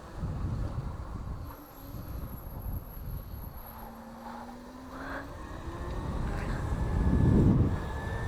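Electric motor of a modded Razor electric bike whining as it rides, some tones gliding slightly with speed, over a rumble of wind on the microphone that grows louder near the end.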